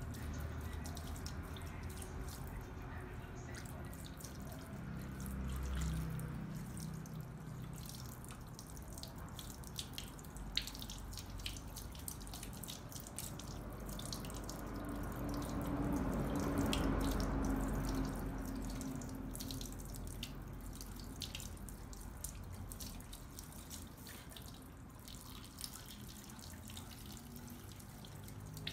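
Water running from a salon shampoo-basin sprayer over a head of hair into the basin while the hair is rinsed, with scattered drips and small splashes. It grows a little louder past the middle, then eases.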